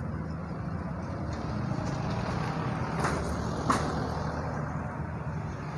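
Car engine idling steadily, a low even hum, with two short clicks about three seconds in.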